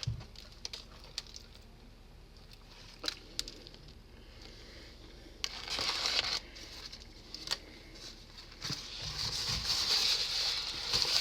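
Eating a sausage, egg and cheese breakfast sandwich: small scattered clicks of mouth and handling noise, with crinkling wrapper rustles about halfway through and again building near the end.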